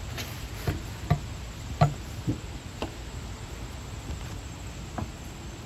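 Half a dozen sharp clicks and light knocks at irregular intervals, from hands and tools working on the pump's hard plastic housing during disassembly.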